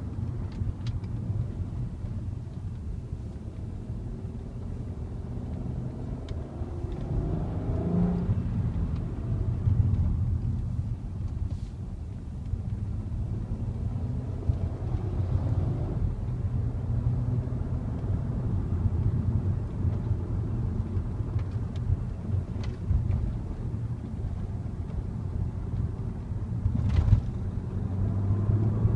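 Volkswagen Passat R36's 3.6-litre VR6 engine on the stock exhaust, driving with a steady low rumble and road noise. The engine note rises under acceleration a few times, about eight seconds in and again near the end, and there is a short knock shortly before the end.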